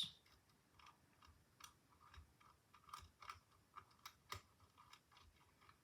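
Faint, irregular clicks and ticks of a lock pick working the pins of a Lockwood-style 570 oval cylinder lock.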